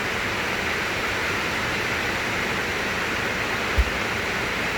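Steady, even hiss of background room noise, with one short low thump near the end.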